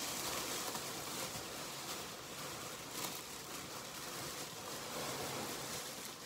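Plastic shopping bag rustling and crinkling as pink rose wall decorations are handled and packed into it, with a few louder crackles.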